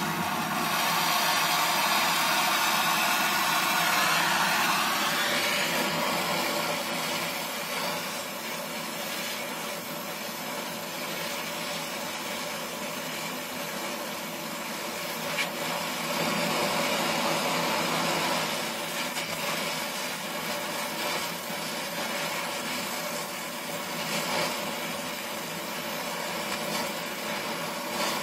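Steady hiss of a Donmet 132A micro oxy-acetylene welding torch flame heating and welding a pinhole leak in a steel water pipe, louder for the first few seconds, with a few short pops later on.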